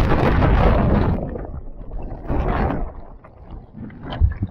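An ocean wave breaking and washing through, loudest in the first second and then fading, with wind rumbling on the microphone and a short low bump near the end.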